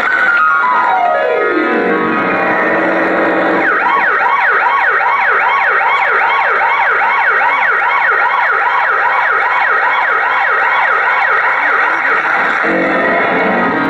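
Siren-like electronic sound effect in a mime performance's backing track. A long falling sweep runs into a rapid yelping warble, about three swoops a second for some nine seconds, then a rising sweep near the end.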